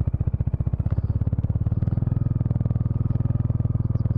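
Bajaj Dominar 400's single-cylinder engine running at low revs while the motorcycle is ridden slowly over a dirt and gravel track: a steady, rapid, even pulse that grows slightly fuller about halfway through.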